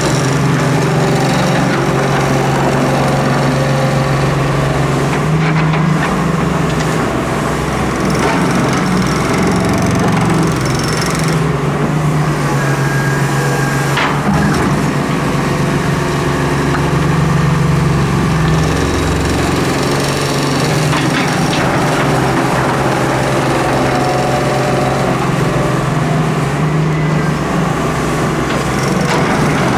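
Diesel engine of a Doosan Solar 130W-V wheeled excavator running under load, its note rising and falling as the hydraulics dig, lift and swing the bucket, with scraping and crunching as the bucket cuts into sand and gravel. A single sharp knock about halfway through.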